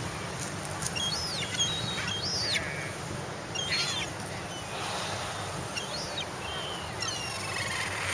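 Seagulls calling: a string of short, high, arching cries, several birds one after another, over a steady background noise.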